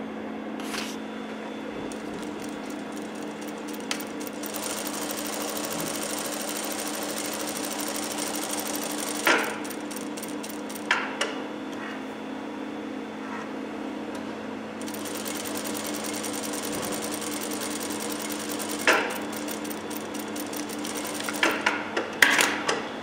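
Industrial sewing machine stitching in two runs of several seconds each, its needle strokes a fast even clatter over the motor's steady hum. Between and after the runs come a few brief louder knocks as the fabric is handled.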